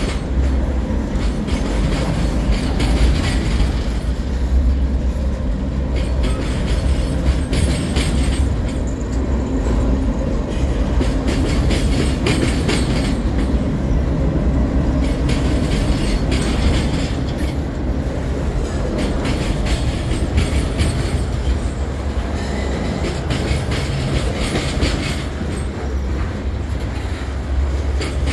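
Freight cars of a CSX train (boxcars and covered hoppers) rolling past at close range: a steady low rumble of steel wheels on rail, broken by repeated sharp clacks of the wheels.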